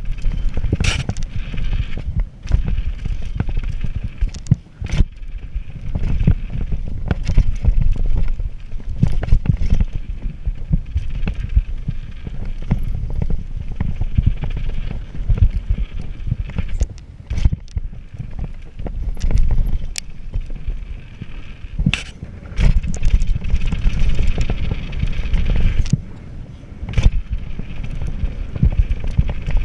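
Radon Swoop 200 full-suspension mountain bike ridden fast down a dirt trail: a steady rumble of wind on the microphone and tyres on dirt, with frequent sharp knocks and rattles as the bike hits bumps and lands jumps.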